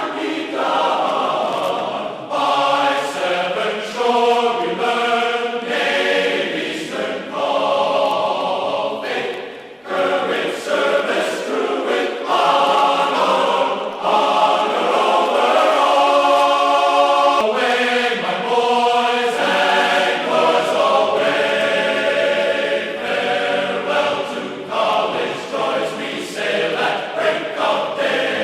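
Background music with choir-like singing voices.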